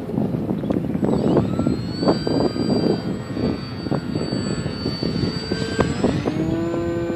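ParkZone Visionaire RC plane's electric motor and propeller whining as the plane flies overhead, the pitch rising about six seconds in. Gusty wind buffets the microphone throughout and is the loudest sound.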